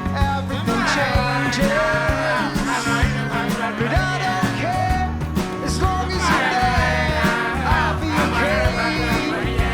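Pop-rock band music with a steady drum beat, bass and a sung vocal line.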